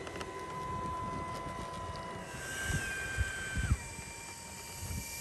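90 mm electric ducted fans of two E-flite Viper 90 RC jets whining steadily on the ground. About halfway a second, higher whine comes in with a rush of air, and its pitch then drops in steps. A few low thumps come near the middle.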